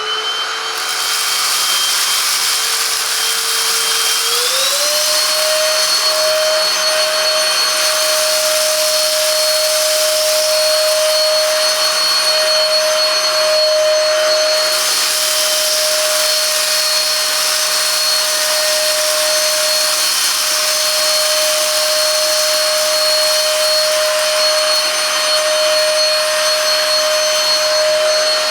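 Silvercrest cordless cyclone handheld vacuum cleaner running: a steady motor whine over the hiss of rushing air. The whine glides up to a higher pitch about four seconds in and then holds there.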